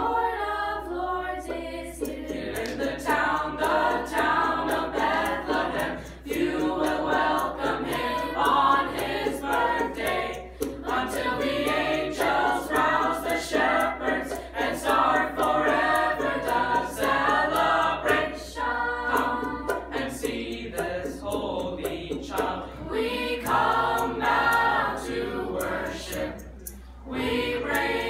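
Small mixed youth choir of girls' and boys' voices singing a cappella, with short breaks between phrases about six seconds in and again near the end.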